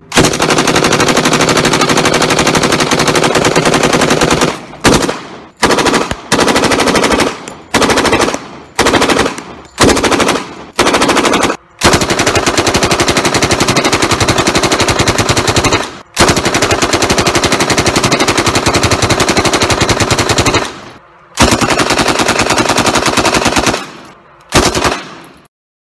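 Rapid automatic gunfire from a film scene, in long sustained bursts, with a run of shorter bursts between about five and twelve seconds in.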